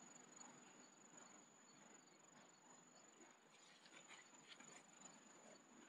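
Near silence with a faint, steady, high-pitched insect trill that runs unbroken.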